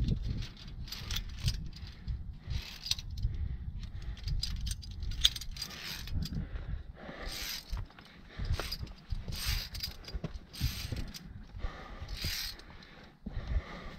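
Metal climbing gear clinking and jangling in irregular bursts, as carabiners and via ferrata lanyard hardware knock together, over a low rumble.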